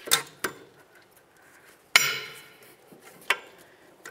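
New brake pad clicking and clanking against the metal clips of the caliper bracket as it is slid and pressed into place. There are about four sharp metallic clicks. The loudest comes about two seconds in and rings on briefly.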